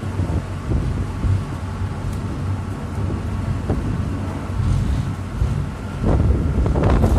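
Ferry's engine running with a steady low hum while wind buffets the microphone; the wind noise grows louder about six seconds in.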